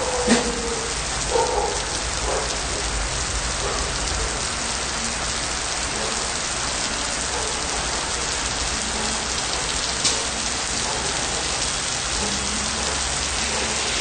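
Steady rain pouring onto wet pavement and puddles, an even hiss of falling water. A few short knocks come in the first couple of seconds, and a sharp tick about ten seconds in.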